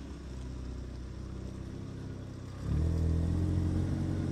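Audi TT RS's turbocharged five-cylinder engine pulling the car slowly up a steep dirt slope, running at low revs at first. About two-thirds of the way in the throttle opens and it gets louder, then holds a steady note under load.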